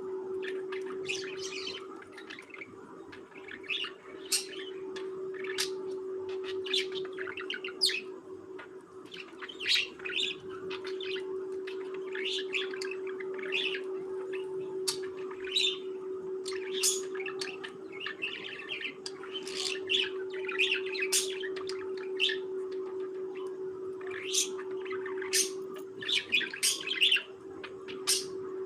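Pet budgerigars chirping and warbling, many short sharp calls overlapping. A steady low hum runs underneath.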